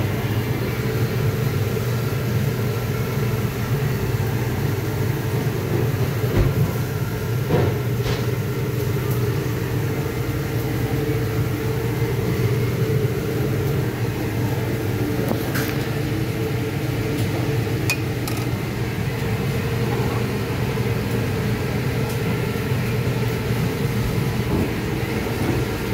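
Steady low mechanical hum, like a fan or ventilation unit running, with a few faint clicks and knocks of utensils or trays.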